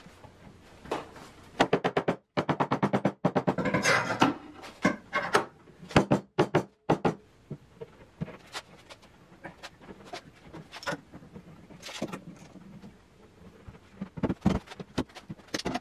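Knocks, taps and clatter of plywood panels being pushed onto glued floating tenons and seated against a 2x4 dresser frame, with quick runs of small taps about two to four seconds in.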